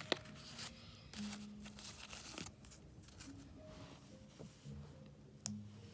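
Faint crinkling and tearing of a plastic blind bag being handled and opened, with a few small clicks.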